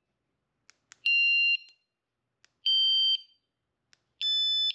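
Guardian Alarms catalytic converter alarm giving three short electronic beeps, each about half a second long and a little higher in pitch than the one before, with a faint click before each. Each tone marks a sensitivity setting: the lower the tone, the more sensitive the alarm, the highest tone the least sensitive.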